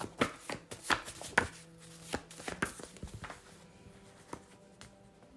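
A tarot deck being shuffled by hand: a run of sharp, irregular card slaps and clicks, thicker in the first few seconds and sparser toward the end.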